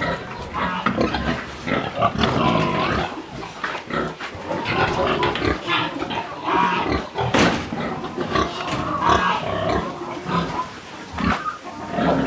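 Several pigs grunting and calling, many short overlapping sounds with no let-up.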